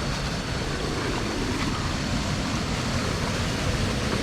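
Waterfall's rushing water: a steady, even noise that neither rises nor falls.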